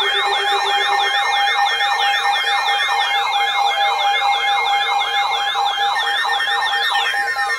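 A weather radio receiver's electronic alert siren, set off by a new warning: a fast, repeating rising-and-falling whoop about three and a half times a second over steady tones. It stops about seven seconds in.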